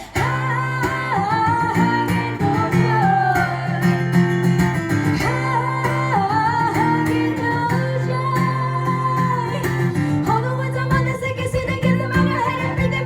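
Live music: a woman singing long held, sliding notes over a strummed acoustic guitar.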